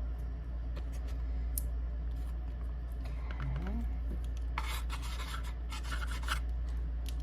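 Scratching and rubbing against paper-covered board as craft pieces are handled, with a few light clicks and a cluster of scratchy strokes about two-thirds of the way through. A steady low hum runs underneath.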